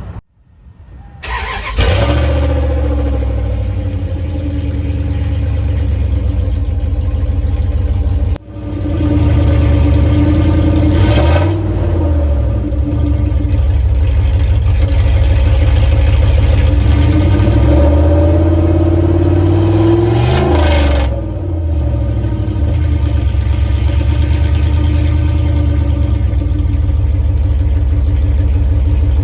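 2000 Dodge Durango's engine, straight-piped with the muffler removed and only a gutted catalytic converter left, cold-started: it catches about a second and a half in and runs loud at idle. It is briefly cut off about eight seconds in, and the revs rise and fall a couple of times in the middle.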